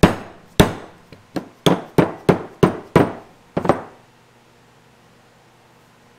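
A mallet striking a steel installer cap, driving a repair sleeve onto a differential pinion flange: about ten sharp, ringing blows, roughly three a second, stopping about four seconds in.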